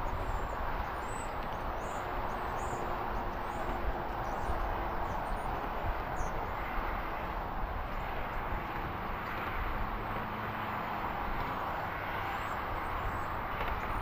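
Steady rushing outdoor background noise, with faint high chirps of small birds scattered through it.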